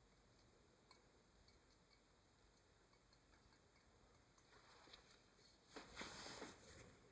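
Near silence with faint, scattered light ticks from the fine tip of a slip-trailing squeeze bottle dabbing dots onto a clay mug, then a brief rustle of handling about six seconds in.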